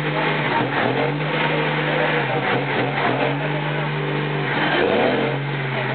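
Dodge Power Ram pickup's diesel engine held at high revs through a burnout, its rear tyres spinning on the pavement. The engine note holds steady, drops out briefly about five seconds in, then comes straight back.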